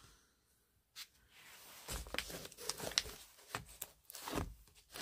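Old books and magazines being handled: irregular paper rustling with light knocks and clicks. It begins with a single click about a second in and runs more busily from about two seconds on.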